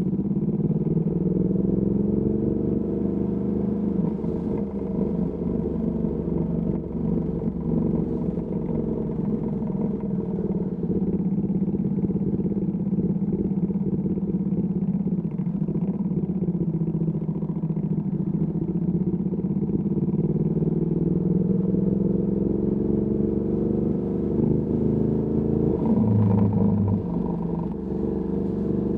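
Ducati Panigale V2S's 890 cc V-twin running through a Termignoni exhaust at low, steady road speed, its pitch rising and falling gently with light throttle changes. A brief steady tone sounds for about a second near the end.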